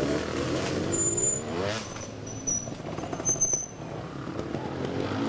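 Trials motorcycle engines revving in short rising blips over a low running rumble as the bikes are worked up a rocky section.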